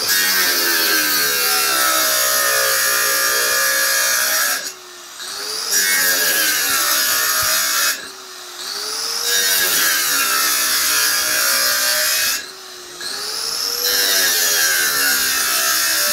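Handheld electric circular saw cutting a wooden board, in four long runs with short breaks between them, where the motor slows and then speeds up again.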